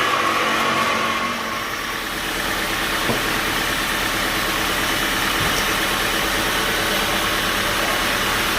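Sawmill machinery running steadily, an engine-like hum with a high whine that fades about a second and a half in.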